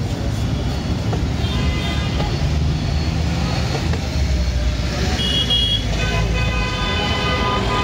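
Busy street traffic: a steady rumble of vehicle engines with horns tooting now and then, one short high toot about five seconds in and several more near the end.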